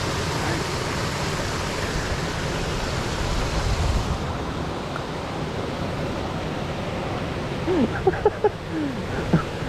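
Steady rushing noise, with a fluctuating low rumble; its hiss eases about four seconds in. Faint voices come in near the end.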